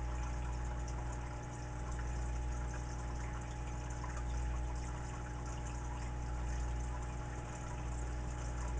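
Steady electrical hum with a faint, even hiss, the background of a powered-up radio bench between transmissions.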